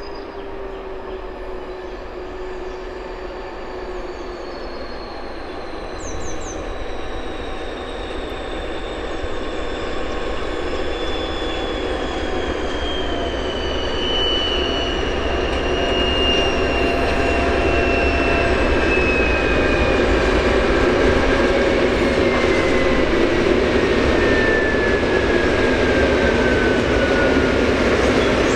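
A freight train hauled by two DB Class 232 'Ludmilla' diesel locomotives approaching and passing. It grows louder for about two-thirds of the time and then holds steady as the wagons roll by, with a high whine that slowly falls in pitch.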